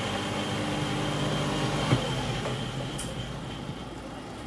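Newly rewound single-phase electric motor running on test at full speed with a steady hum. About two seconds in there is a sharp click and the hum stops, as if it is switched off, leaving a softer whir as it spins down.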